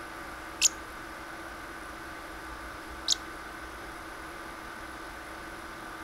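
Pet parrotlet giving two short, high-pitched chirps about two and a half seconds apart, over a steady electrical hum.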